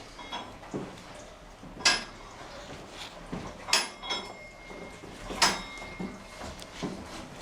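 Hand-operated olive press being worked: three loud metal clanks that ring briefly, spaced a little under two seconds apart, with lighter knocks in between.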